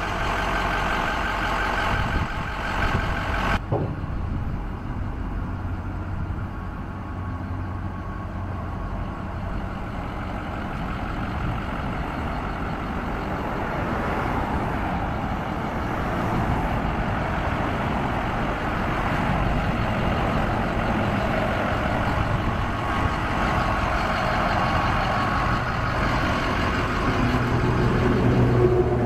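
Ford F-450's 6.0-litre Power Stroke V8 diesel idling steadily. A higher-pitched hum over it cuts off abruptly about three and a half seconds in.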